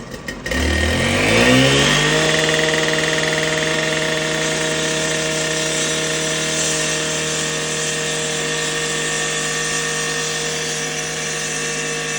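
Petrol concrete saw throttling up from idle: its pitch rises sharply about half a second in, then it runs steadily at high speed, ready to cut the concrete.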